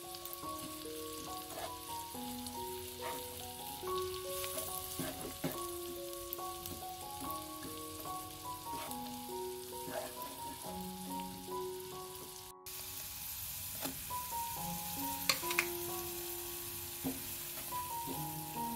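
Diced onion sizzling in melted butter in a pan, with a wooden spatula stirring and tapping against the pan, the onion cooking until it softens. Background music plays over it.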